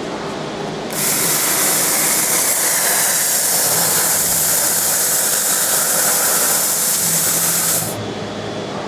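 Air-assist hissing steadily from the nozzle of a 260 W laser cutter's head as it cuts a fiberglass sheet, switching on suddenly about a second in and stopping about a second before the end. A steady machine hum runs underneath.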